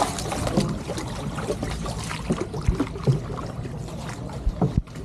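Water sloshing and splashing as a small wooden boat is paddled with a long oar, with a few short knocks along the way.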